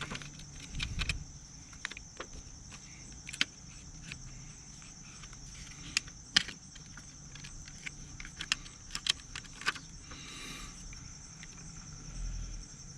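Scattered light clicks and taps of plastic screen-protector film and fingers working on a motorcycle radio's screen, over a steady high whine.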